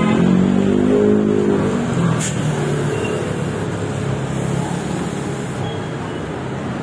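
A motor vehicle engine running, its pitch rising and falling over the first couple of seconds before settling into steady noise, with a short hiss about two seconds in.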